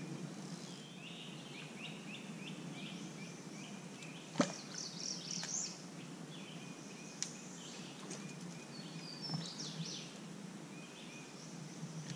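Birds chirping and calling in short repeated phrases, with one sharp click about four seconds in and a fainter click a few seconds later.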